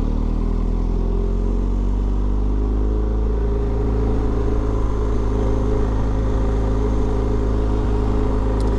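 BMW R 1250 GS boxer-twin engine running on the move, its pitch easing down over the first few seconds and then holding steady, over a heavy low rumble.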